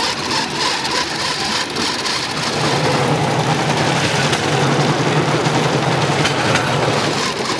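Small engine of a bamboo train (norry) running as the platform travels along the rails, over a steady rushing noise. Its low drone grows stronger about two and a half seconds in and holds.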